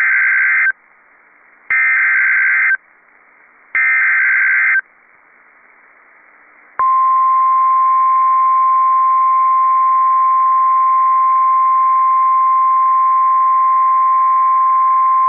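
NOAA Weather Radio emergency alert tones: three short bursts of buzzy digital data tones (the SAME header), then the steady 1050 Hz warning alarm tone held about nine seconds. These tones open a newly issued weather warning.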